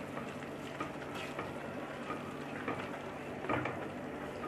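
Gajar ka halwa (grated carrots in milk and sugar) bubbling in a pan on high flame, with a few soft scrapes and taps of a spatula stirring it.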